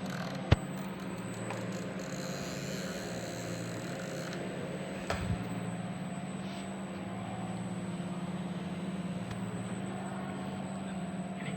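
A machine running with a steady hum, a sharp click about half a second in and a short knock about five seconds in.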